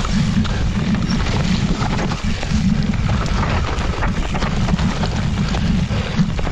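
Wind buffeting a helmet-mounted action camera's microphone during a fast mountain-bike descent, a steady loud low rumble. Over it, frequent short clicks and knocks as the bike clatters over rocks and roots on wet dirt and leaves.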